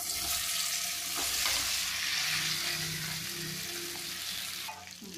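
Slices of colocasia-leaf roll sizzling in hot oil in a kadai as a wooden spatula stirs them. The sizzle starts suddenly and dies down near the end.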